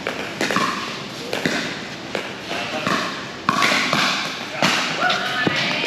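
Pickleball paddles striking a plastic pickleball: an irregular run of sharp pops, several a second at times, over a background of voices.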